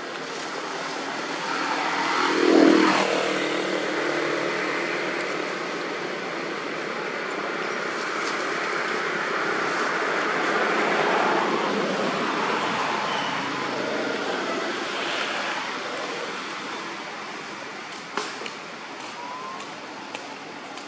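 Road traffic going by: a vehicle's engine rises to its loudest and drops in pitch as it passes about two and a half seconds in, then a longer swell of traffic noise fades away toward the end.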